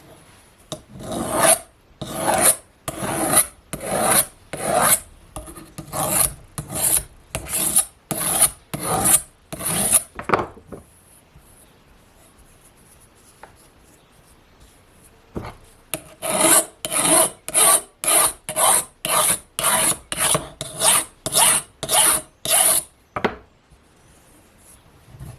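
Chainsaw chain being sharpened with a hand file, rasping strokes at about one every 0.7 seconds. A run of about a dozen strokes, a pause of some five seconds, then another run of about as many.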